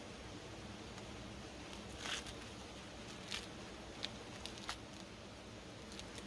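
Green husks being torn and peeled off an ear of white corn by hand: short tearing rustles about two seconds in and again a second later, then a few lighter snaps, over a faint steady hiss.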